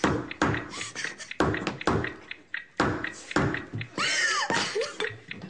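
Repeated hard, irregular knocks as walnuts in the shell are bashed open on a kitchen counter without a nutcracker, with a short rising-and-falling cry about four seconds in.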